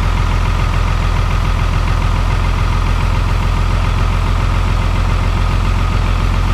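Dodge Ram's 24-valve 5.9 Cummins inline-six turbo diesel with a VP44 injection pump running steadily through a straight-piped exhaust. It is cold-started at about −25 and held in its raised high idle with only three cylinders firing.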